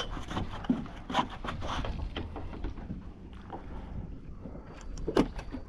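Irregular light knocks and taps aboard a small fishing boat, over a low steady rumble of wind and water, with a louder knock about five seconds in.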